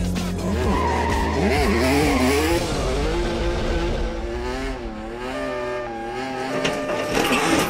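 A Hyundai Genesis Coupe drift car's engine revving, its pitch rising and falling, with tyres squealing and skidding as it spins up thick tyre smoke.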